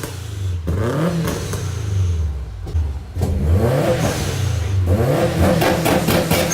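A car engine revving up and down several times, its pitch rising and falling with each rev.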